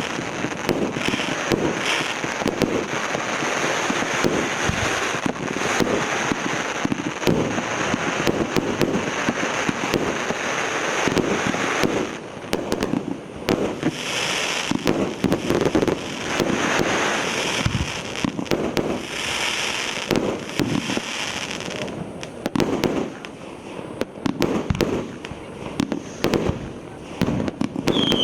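A consumer fireworks battery (cake) firing a rapid, continuous volley of shots with crackling bursts. Stretches of hiss sound among the shots, strongest about halfway through and again a few seconds later, and the shots thin out for the last few seconds.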